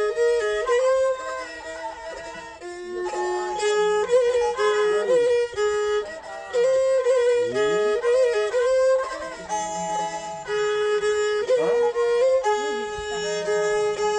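Two Thai bowed fiddles (so) playing a mahori melody together, with sustained notes and frequent slides between pitches.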